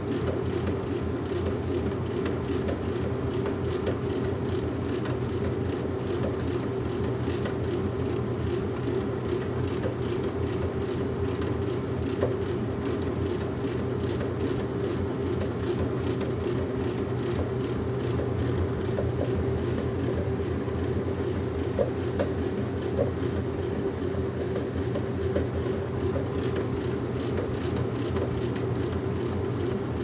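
Washing machine running: a steady motor hum over a low rumble, with a faint, even rhythm from the turning drum and an occasional small click.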